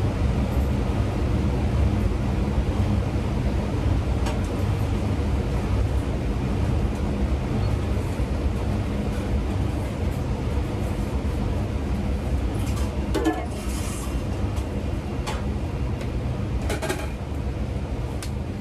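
Steady low rumble of a working restaurant kitchen, with a few short clinks and knocks as a steel pot and plastic sauce bottles are handled while sauce is poured into the bottles.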